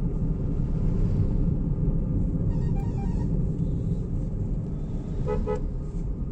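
Car driving, heard from inside the cabin as a steady low road and engine rumble. A vehicle horn gives two short beeps near the end, with a fainter horn-like tone about halfway through.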